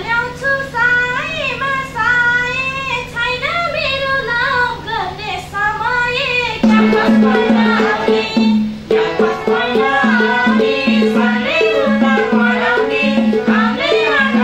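Woman singing a Nepali dohori folk song. About seven seconds in, a madal hand drum comes in under her voice with a steady, rhythmic beat.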